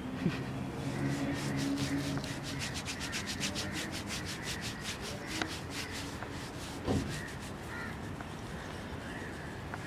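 A hand rubbing and scratching a dog's belly fur: quick, even, scratchy strokes at about five a second that fade after the middle, with a soft thump about seven seconds in.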